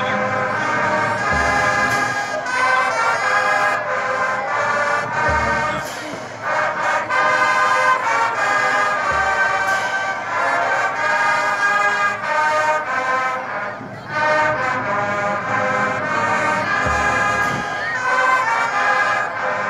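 High school marching band playing a tune on the field, full brass chords heard from the stands, with short pauses between phrases.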